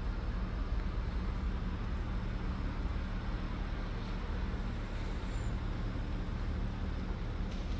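Steady low engine rumble with an even hiss of traffic noise.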